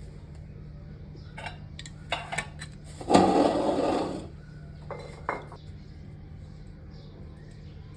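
Eating noises over a plate of fried noodles: a few sharp clicks of utensils against a dish, then a loud burst of noise about a second long three seconds in, then two more clicks, over a steady low hum.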